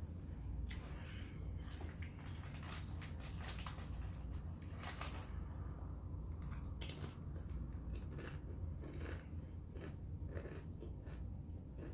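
Close-up crunching and chewing of Doritos tortilla chips: an irregular run of crisp crackles over a steady low hum.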